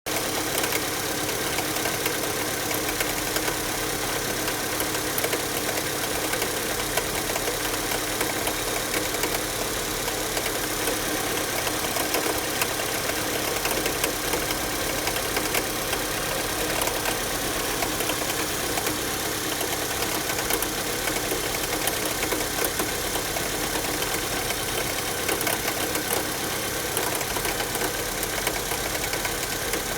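Chevrolet Cruze 1.8 inline-four petrol engine running steadily, with a fast, constant ticking knock over the engine note. The owner puts the knock down to the variable valve timing cam phaser.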